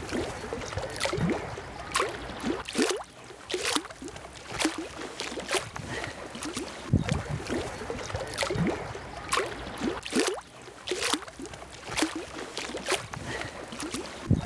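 SUM microprocessor electrofisher running its pulsed high-voltage output, ticking with each pulse: a sharp click with a short falling chirp about once a second.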